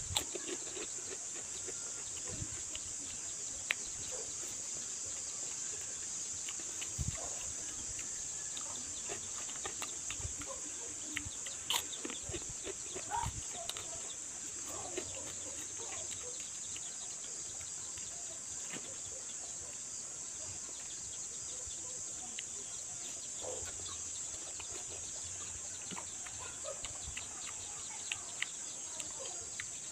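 Close-up chewing and crunching of banana chips and crackers eaten with rice, in many scattered short crisp clicks. Under it, a steady high-pitched insect drone.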